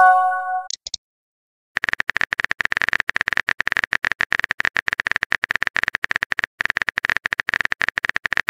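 Chat-app sound effects: a short message-received chime with a couple of high blips, then, after a pause, a long run of rapid keyboard-typing clicks with a brief break partway through, as the next message is typed.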